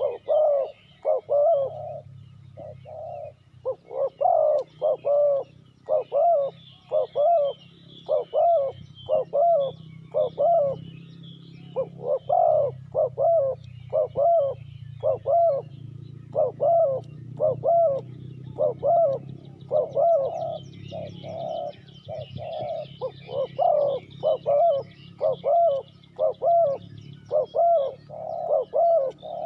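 Spotted dove cooing over and over in short phrases of two or three notes, with faint chirps of small birds higher up and a steady low hum underneath.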